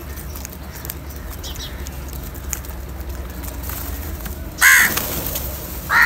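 A crow cawing: one loud caw about three-quarters of the way through, and a second caw starting at the very end, over a steady low rumble.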